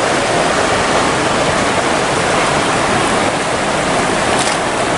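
Fast-flowing river water rushing steadily past the bank.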